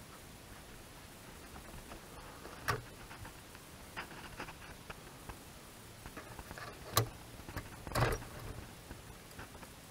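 Plastic clicks and light knocks from the rear of a Ford Focus MK2 headlight being handled, as its dust cover comes off and the bulb's connector and clip are worked loose. There is a sharp click about seven seconds in and a short rattle of clicks just after.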